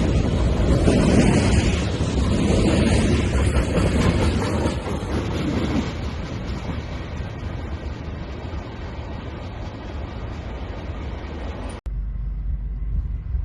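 A freight train rolling past, a steady wash of wheel and car noise that slowly fades. It cuts off abruptly near the end, leaving a quieter steady low hum.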